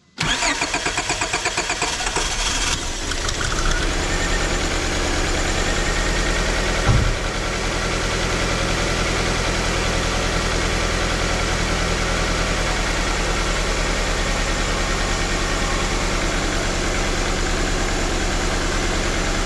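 1999 Honda Accord engine cranked by the starter for about two and a half seconds, then catching and settling into a steady idle: its first start after a new fuel injector was fitted to cure a misfire. A brief thump about seven seconds in.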